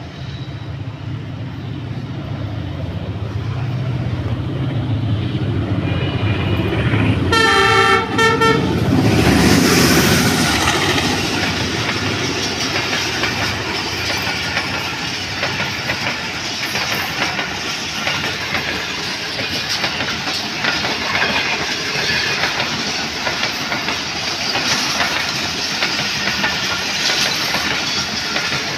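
ZCU-30 diesel locomotive approaching with its engine rumble building, then sounding its horn in a blast of about a second and a half, about seven seconds in. It passes close, and its passenger coaches roll by with steady wheel clatter.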